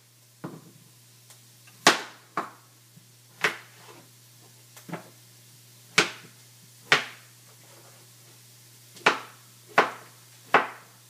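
Chef's knife slicing a squash into rounds, each cut ending in a sharp tap of the blade on the cutting board: about ten taps at an uneven, unhurried pace.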